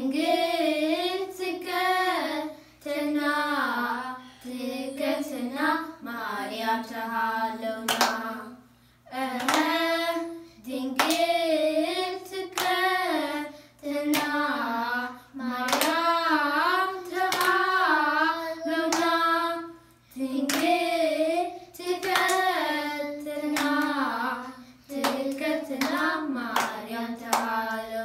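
Children singing a Tigrinya Orthodox Tewahedo hymn (mezmur) together in short repeated phrases, with regular hand clapping keeping the beat.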